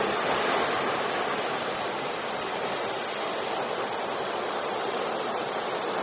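Ocean surf breaking on a beach: a wave crashes at the start, then a steady rushing wash of foam and water.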